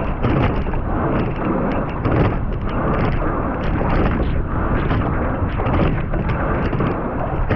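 Wind buffeting the microphone and water rushing past a racing quad scull under way, with small clicks and knocks from the oar and oarlock right beside the microphone.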